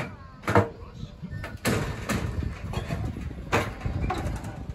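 Four sharp knocks or clacks, irregularly spaced, over a steady low rumble.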